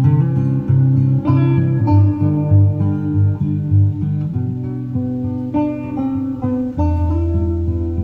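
Guitar music played back from a cassette on an Akai CS-703D stereo cassette deck: plucked guitar notes changing every fraction of a second over held low notes.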